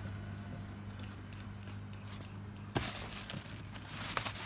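A few sharp clicks or snips, the loudest about three seconds in and again near the end, over a steady low hum.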